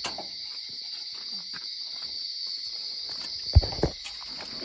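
Crickets chirping steadily, with two dull thumps in quick succession about three and a half seconds in.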